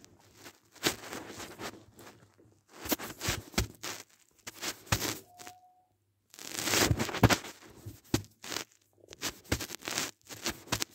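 Hot Wheels blister pack being torn open, its cardboard backing and plastic bubble tearing and crackling in four rough bouts of a second or two each.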